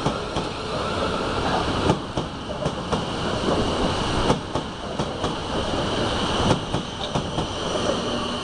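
A Class 444 Desiro electric multiple unit passing beneath a footbridge, its wheels clicking irregularly over the rail joints over a steady running noise.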